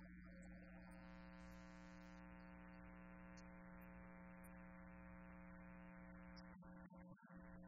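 Faint sustained musical note with its overtones held steady from about a second in until near the end, over a constant low electrical hum, at near-silent level.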